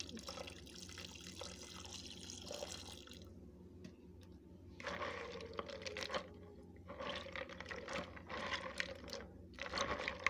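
A thin stream of water pouring into a plastic bucket of soaking gabgab wood pieces, stopping about three seconds in. From about five seconds in, a hand sloshes and rubs the wet wood pieces in the water in several short bouts.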